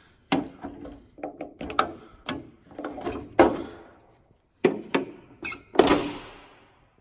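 Irregular plastic clicks, knocks and creaks from a screwdriver pushing down the retaining tabs and push pins on a car's plastic front trim panel, loosening it.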